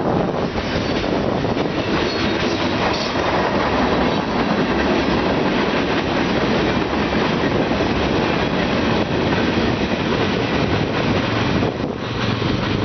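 Union Pacific manifest freight train passing close by at track speed: a steady, loud rumble of steel wheels on rail with rapid clicking as the wheels cross rail joints.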